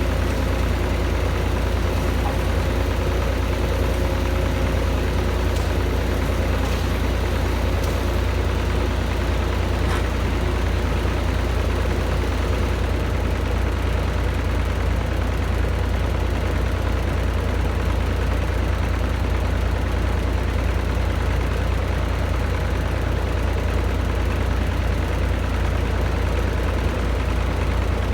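Heavy diesel engine running steadily, a deep constant rumble. A faint held whine sits over it for the first several seconds, then fades.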